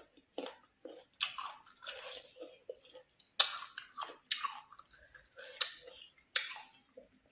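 Close-miked chewing of crisp raw green mango: irregular crunching strokes, with the sharpest, loudest crunch about halfway through.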